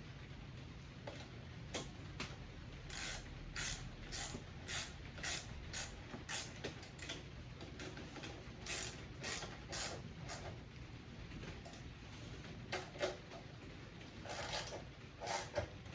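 Hand tools working on snowblower parts: a run of short metallic clicks and scrapes, about two a second, then a few more near the end.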